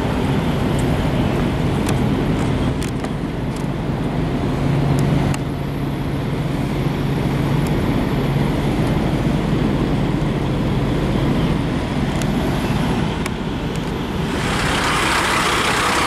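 Vehicle and traffic noise: a steady low hum of diesel truck engines, with a louder rushing noise beginning near the end as a semi-truck is close by.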